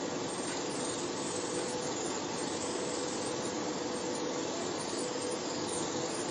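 Hydrafacial machine's spray mist gun spraying: a steady hiss of air and water mist, with a faint steady hum underneath.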